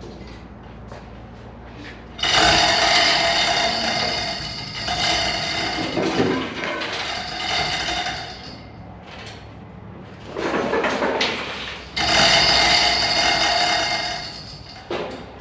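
Steel tilt dolly under a stripped VW Double Cab body scraping and screeching, metal on metal and concrete, as the body is pushed over onto its side. It comes in long grating stretches: one of about six seconds starting two seconds in, then two shorter ones near the end.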